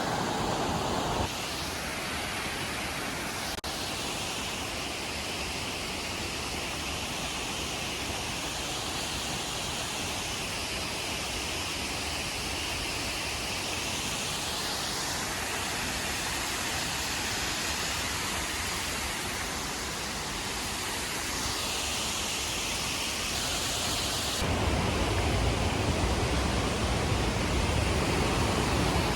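Rushing water in a mountain gorge, a steady loud hiss. Its character changes abruptly about a second in, and again near the end, where it becomes fuller and deeper.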